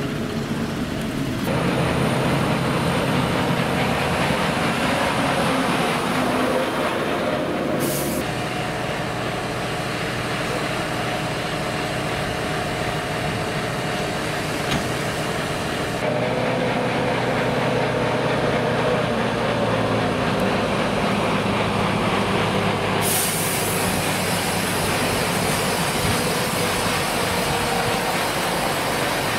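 Heavy diesel machinery running steadily, its sound shifting abruptly several times.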